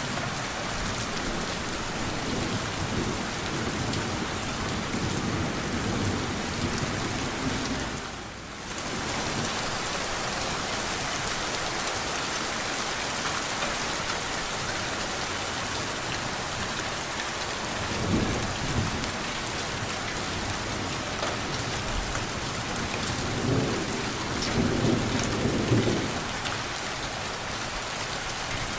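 Steady rain falling, with low rolls of thunder rumbling through it several times; the loudest thunder comes near the end. The rain briefly drops away for a moment about eight seconds in.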